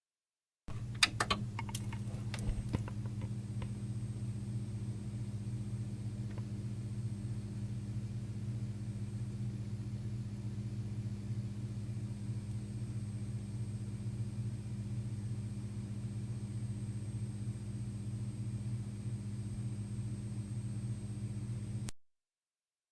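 Tube (CRT) television buzzing: a few sharp clicks in the first couple of seconds as it comes on, then a steady low hum with a faint high whine, cutting off suddenly near the end.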